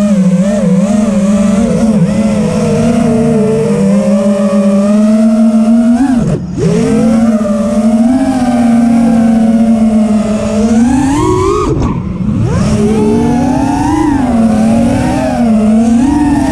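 Radio-controlled car's electric motor whining under throttle, its pitch rising and falling as it speeds up and slows. It drops off sharply and climbs back twice, about six and about twelve seconds in.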